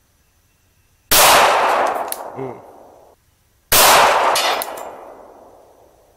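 Two gunshots about two and a half seconds apart, each followed by a long echo that fades away over about two seconds.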